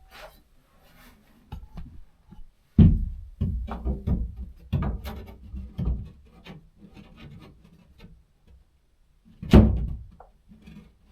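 A spirit level being knocked and slid against a drywall wall: scattered thuds and scraping, with the loudest knocks about three seconds in and again near the end.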